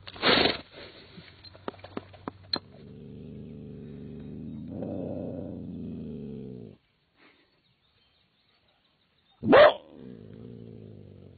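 A trapped coyote growling low and steadily for a few seconds, then, after a pause, letting out one sharp loud bark and going back to growling. Before that, a trapped black bear gives a loud huff and its trap chain clinks several times.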